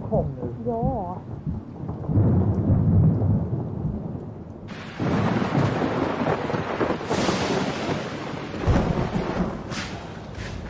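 Thunderstorm: a low rumble of thunder builds about two seconds in, then heavy rain sets in suddenly about five seconds in, with further rolls of thunder under the downpour.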